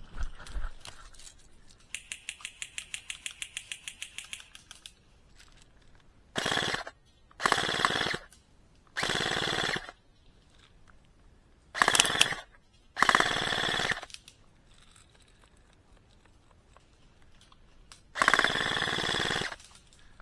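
Airsoft electric rifle, a Double Bell BY-810S, firing six bursts on full auto, each half a second to a second and a half long. Before them comes a quick even run of clicks for about three seconds.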